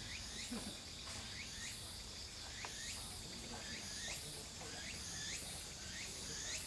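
Insects chirping in a steady, rhythmic pulse, about two pulses a second, over a constant high-pitched drone.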